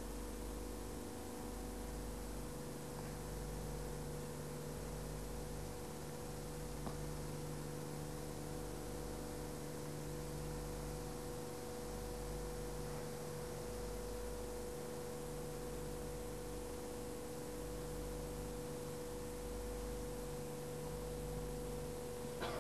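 Steady electrical hum over a faint hiss, with no other clear sound.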